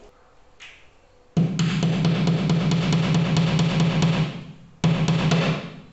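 Background music with a drum beat over a steady bass line, starting abruptly about a second and a half in, fading and cutting back in near the end.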